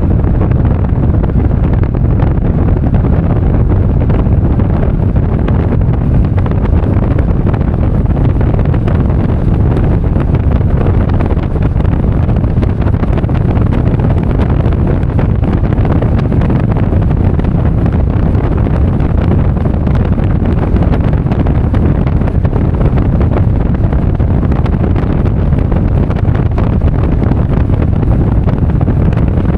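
Steady, loud low rumble of wind buffeting the microphone mixed with vehicle road noise while travelling, with no distinct events.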